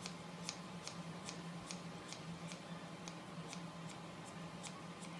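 Scissors snipping through a long ponytail of hair: an even run of small crisp clicks, about two or three a second, over a low steady hum.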